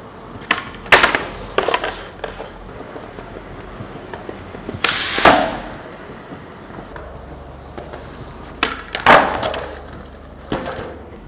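Skateboard tricks on smooth concrete: a series of sharp pops and slaps from the board's tail and deck hitting the ground, with wheels rolling in between. The loudest hits come about a second in, around five seconds in and around nine seconds in.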